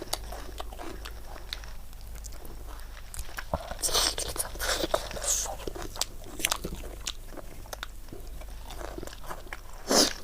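Close-miked eating of chicken curry with rice: wet chewing and mouth clicks with crunchy bites, the loudest crunch near the end.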